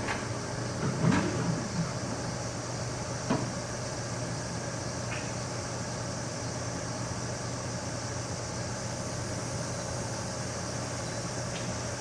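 Steady low mechanical hum, with a few short sharp knocks in the first few seconds, the loudest about a second in and about three seconds in.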